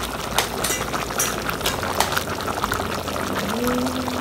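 Potatoes in a thin tomato-curry sauce with a little added water boiling in an aluminium pot: steady bubbling with many small pops.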